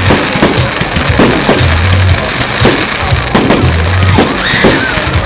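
Fireworks going off in quick succession, with many sharp bangs and crackles from bursting shells and crackling stars, over music with a deep bass beat.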